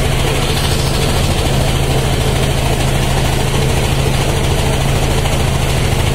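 Motorboat engine running steadily with a low, even drone, heard from on board.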